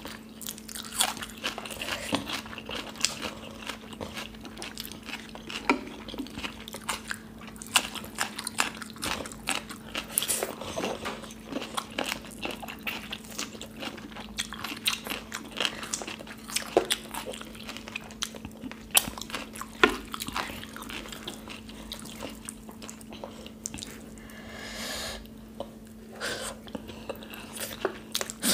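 Close-miked eating sounds of two people eating rice with kadhi and dal by hand: chewing, smacking mouth sounds and short crunches, with many irregular clicks. A steady low hum runs underneath.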